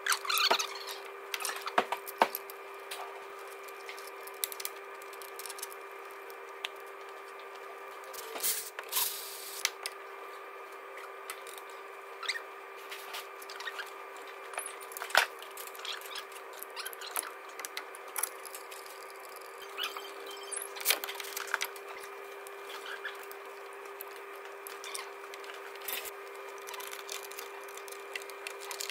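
Scattered clicks, taps and knocks of hand tools and metal engine parts being handled and fitted back together, with a few louder knocks, over a steady background hum.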